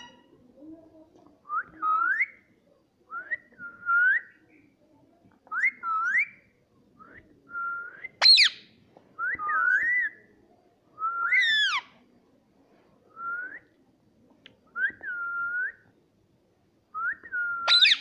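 Indian ringneck parakeet whistling a string of short notes, most sliding up then holding, roughly one a second, with two louder, higher calls near the middle.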